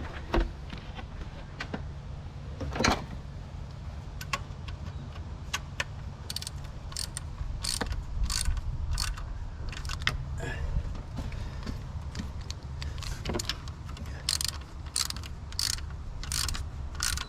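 Hand socket ratchet clicking in short irregular runs as the alternator's bottom mounting bolts are tightened.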